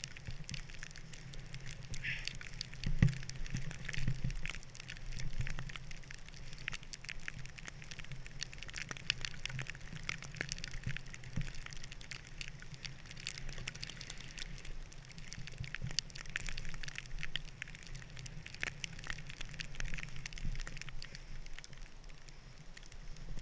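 A snowboard sliding through deep powder snow: a steady rushing hiss with frequent small crackles and clicks, and a few louder knocks in the first few seconds.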